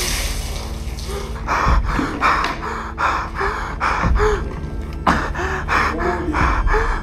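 A man gasping and panting for breath, about two or three ragged gasps a second, some with short strained cries in his voice.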